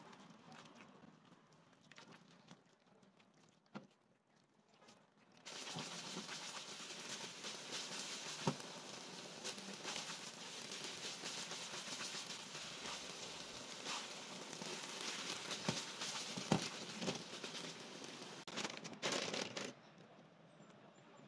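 Crumbled chhana cooking in ghee in a nonstick pan, stirred and scraped with a spatula. It starts with a few light taps, then from about five seconds in comes a steady sizzling hiss with scattered crackles and knocks, which stops shortly before the end.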